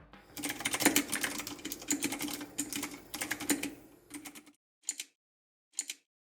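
Typing on the FINEDAY 3 mechanical keyboard, with its aluminum body and keycaps: a quick run of key clicks for about four seconds, then two single keystrokes.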